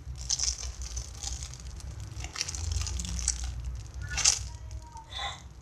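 A homemade squishy being squeezed and handled close to the microphone: uneven rustling and crinkling, with a louder rustle about four seconds in.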